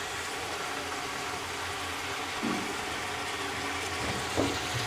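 Chicken pieces and fried onions sizzling in hot oil in an aluminium pot: a steady hiss, with a brief louder patch about two and a half seconds in as garlic-ginger paste goes in.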